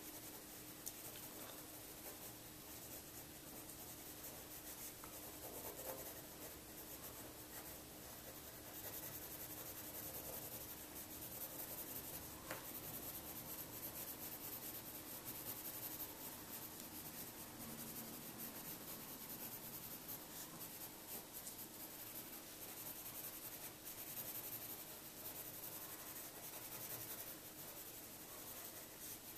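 Graphite pencil scratching faintly on paper in quick, repeated shading strokes, getting a little busier from about nine seconds in.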